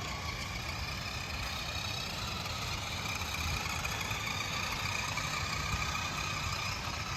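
Toy remote-control Jeep's small electric motor and gears whining steadily at an even pitch as it drives on its normal speed setting, with a low rumble underneath.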